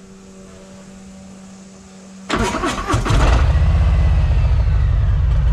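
Harley-Davidson V-twin with Stage 1 tuning and Rinehart true-dual exhaust being started. A steady hum for about two seconds, then the starter cranks about two seconds in, the engine catches within a second and settles into a loud, fast-pulsing idle.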